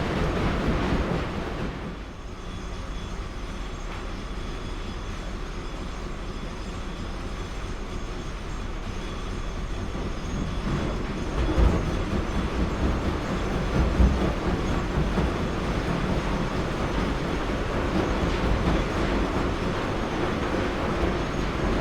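Continuous rumbling, clattering machinery noise. It drops somewhat about two seconds in and builds again after about eleven seconds, with two louder knocks.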